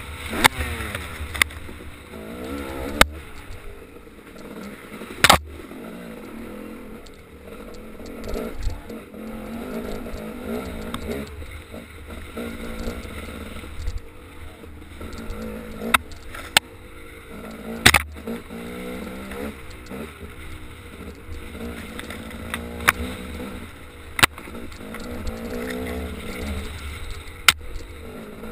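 Off-road vehicle's engine revving up and down as the throttle is worked over rough ground, with several sharp knocks as the vehicle jolts over rocks.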